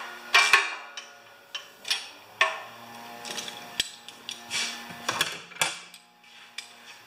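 Metal hand tools clinking and clattering: a socket wrench with extensions being fitted and turned, with irregular sharp clanks, a few of them ringing briefly.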